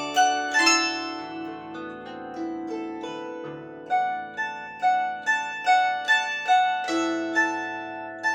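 Solo instrumental music: a slow melody of single ringing notes, each starting sharply and dying away, over held bass notes. From about four seconds in the melody notes come evenly, roughly two a second.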